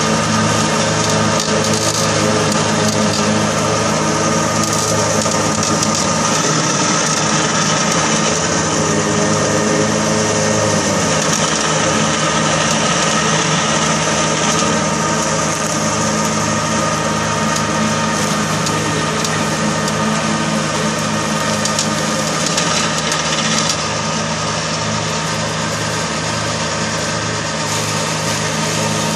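Kubota compact tractor's diesel engine running steadily under load, driving a rear-mounted PTO rotary mower as it cuts through overgrown grass and brush.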